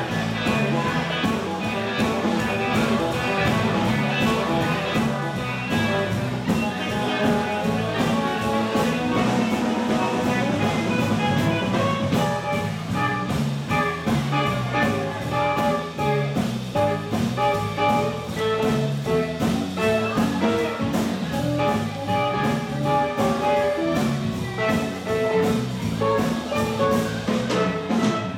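Live swing band playing a jazz tune with a steady beat.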